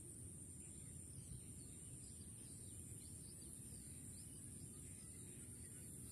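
Faint rural ambience: a steady high-pitched insect drone with a few faint, short bird chirps over a low rumble.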